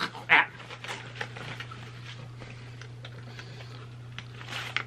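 Shredded paper filler and a gold foil pouch rustling and crinkling as they are handled, in scattered soft crackles with a short louder rustle just after the start and another near the end, over a steady low hum.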